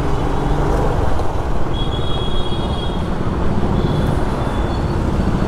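Steady road noise of a two-wheeler riding in city traffic: engine hum, wind and surrounding vehicles blended into an even, low-heavy din.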